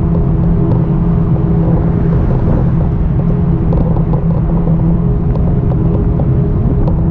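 E-bike cruising at a steady speed: a low rumble of tyres and air with a steady motor hum, and light rattles from bumps along the way.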